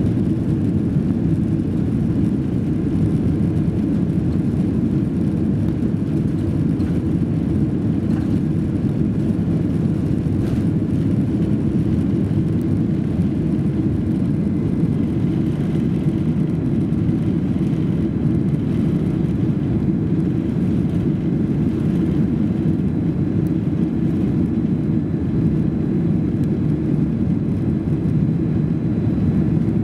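Boeing 767-300 jet engines at takeoff power, heard from inside the cabin over the wing: a steady, loud, deep rumble through the takeoff roll, liftoff and initial climb.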